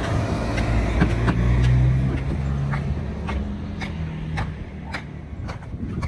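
A small box truck's engine running as it drives past, loudest in the first two or three seconds and then fading away. Sharp taps sound here and there throughout.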